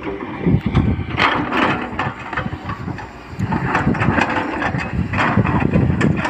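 Hydraulic excavator at work: its diesel engine runs and surges unevenly, with repeated crunching and knocking as the bucket digs and scrapes earth.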